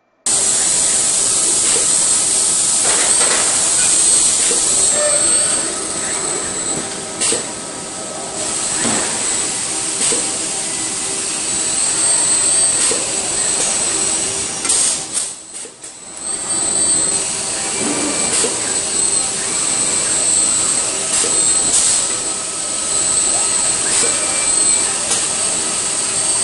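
Factory-floor noise of a car body-shop line with ABB industrial robots working: a loud, steady hiss and machine hum with several steady whining tones, broken by occasional sharp clanks. The noise briefly drops away a little past the middle.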